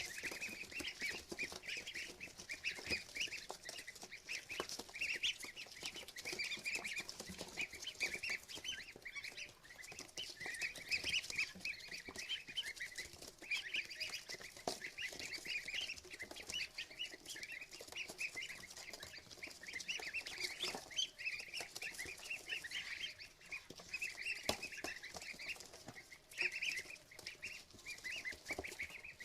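A box of ducklings peeping constantly: many short, high peeps overlapping in an unbroken chorus.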